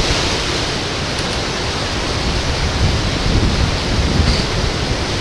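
Hurricane wind and rain in woodland: a loud, steady rush of noise with irregular low rumbles of wind.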